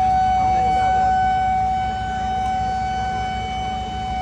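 A small warning siren sounding one loud, steady tone with strong overtones, holding its pitch without rising or falling.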